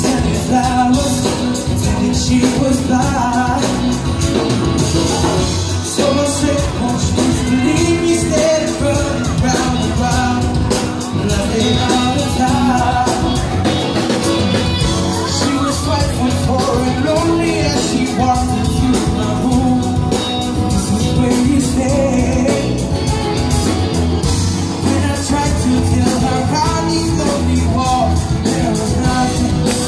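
A live band plays with drums and singing, loud and unbroken.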